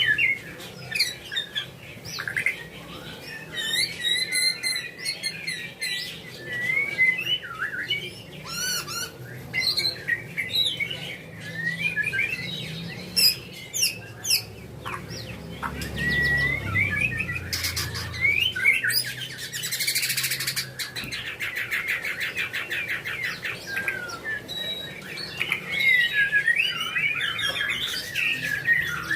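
White-rumped shama singing a long, varied song of loud whistled phrases and pitch glides mixed with fast chattering trills and rattles, with a dense rapid trill about two-thirds of the way through. A steady low hum runs underneath.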